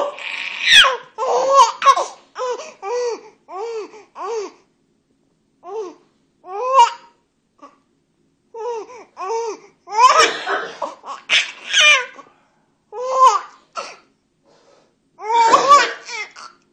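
A baby laughing in a long string of short, high-pitched bursts, set off by a man's coughs; a few harsher, noisier bursts come in among the laughs near the start, around ten seconds in and near the end.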